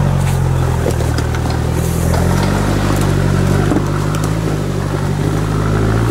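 Toyota Land Cruiser off-roader's engine pulling steadily at low revs under load as the 4x4 crawls up a rutted forest track, the note stepping up slightly a couple of seconds in.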